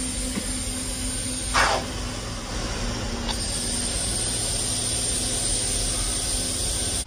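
Graffiti-removal machine working its enclosed cleaning head over a rendered wall: a steady hiss with a low hum under it. A short, louder whoosh comes about one and a half seconds in.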